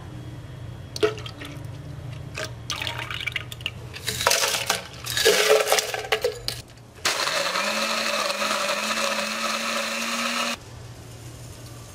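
Osterizer countertop blender starting about seven seconds in and running steadily for about three and a half seconds, blending ice with milk and rompope, then cutting off abruptly. Before it, a couple of seconds of pouring and knocking as the plastic jar is filled and handled.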